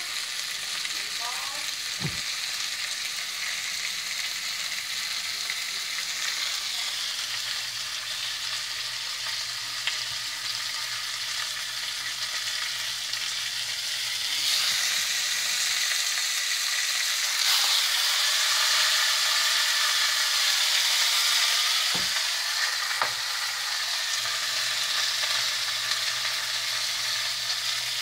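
Meatballs in gravy sizzling in a hot skillet, a steady hiss that grows louder about halfway through. A few sharp clinks come from the metal serving ladle against the skillet and plate.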